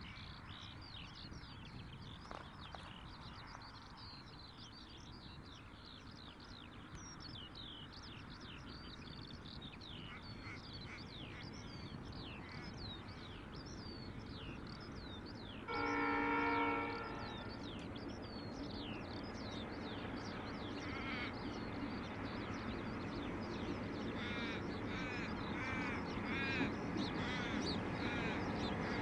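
Pacific National H1 diesel-electric locomotive running light, giving one short horn blast about halfway through, its engine growing louder toward the end. Birds chirp throughout.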